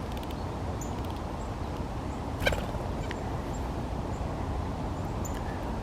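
Small songbirds calling: scattered faint high chips and one short nasal call about two and a half seconds in, over a steady low rumble.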